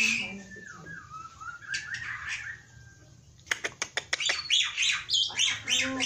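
Caged black-winged myna (jalak putih) singing vigorously: harsh calls at first, then soft gliding whistles. From about three and a half seconds in comes a quick run of sharp clicks, followed by loud, varied harsh calls.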